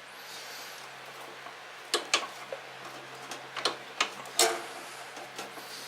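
Scattered light metallic clicks and taps as parts of a snow thrower's axle assembly are handled while a spring is cleared aside, the loudest a little after four seconds in with a short ring, over a steady low hum.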